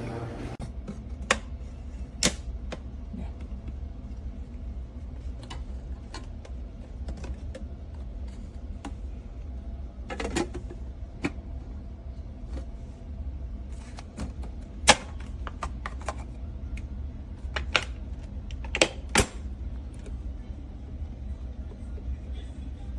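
Scattered sharp clicks and taps at irregular intervals, the loudest about 15 seconds in, over a low steady hum.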